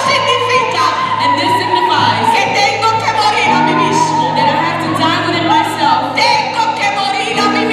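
Live worship music: women singing long, held notes into microphones over a live band, with steady low bass notes coming in about halfway.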